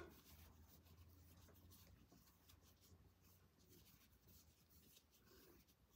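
Near silence: faint, light scratchy rustling of a crochet hook drawing white cotton yarn through the stitches as double crochets are worked.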